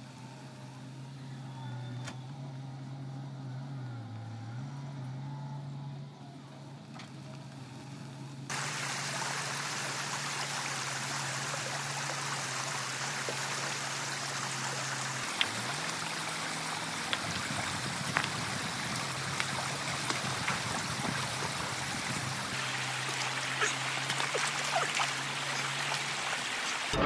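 Shallow stream water rushing steadily over stones, starting abruptly about a third of the way in, with a few small splashes and clicks. A low steady engine hum runs underneath and is heard alone beforehand.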